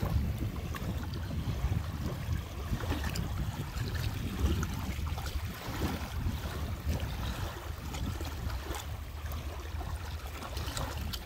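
Small waves lapping and washing in the shallows at the water's edge, under a steady low rumble of wind on the microphone.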